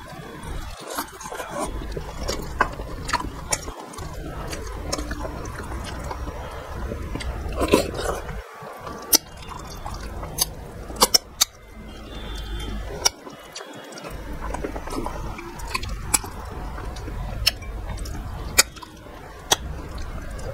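Close-miked mouth sounds of eating by hand: wet chewing and smacking, with sharp clicks scattered throughout.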